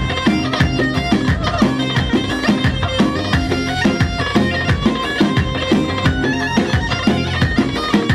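Instrumental Kurdish wedding dance music: a reedy wind-instrument melody over a steady, evenly repeating drumbeat.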